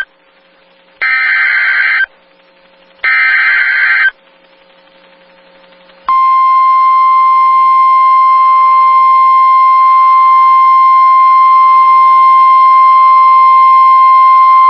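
NOAA Weather Radio Emergency Alert System signal: two loud bursts of SAME digital header data, each a harsh buzzing warble about a second long and two seconds apart. Then, about six seconds in, the 1050 Hz weather radio warning alarm tone starts and holds one steady pitch.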